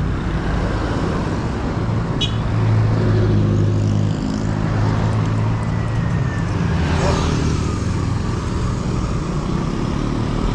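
Town road traffic, with motor vehicle engines running steadily close by, heard from a bicycle riding along the road. A brief high-pitched blip comes about two seconds in.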